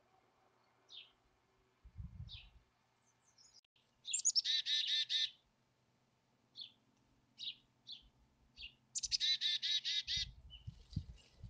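Black-capped chickadee giving its chick-a-dee call twice, each a high opening note followed by a rapid run of about six 'dee' notes, with short single high call notes in between. A few low thumps near the end.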